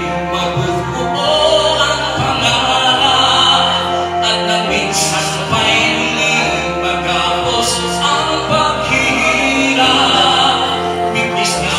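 A man singing into a handheld microphone over a recorded minus-one backing track, with held bass notes that change every second or two.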